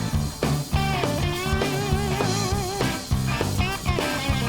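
Background music: an electric-guitar rock track with a steady beat and a wavering, vibrato lead line.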